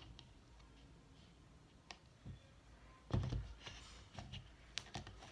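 Quiet room with a few faint clicks and a soft knock about three seconds in, from small objects being handled.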